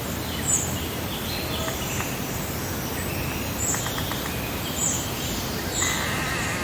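Outdoor meadow ambience: birds singing over a steady wash of breeze, with one high, short call repeating about once a second.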